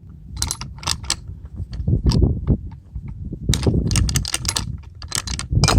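A running engine's low rumble with many irregular sharp clicks and knocks over it, in clusters rather than a steady rhythm.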